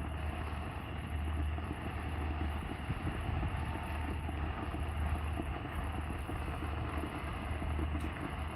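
A steady low rumble over an even noise, with no sharp bangs.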